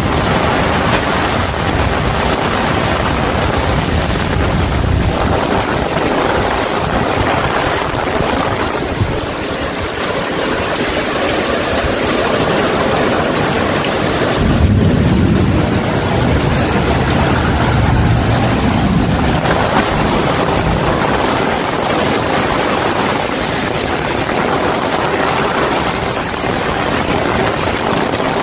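Heavy rain pouring down steadily, with gusty wind rumbling on the microphone, strongest right at the start and again around the middle.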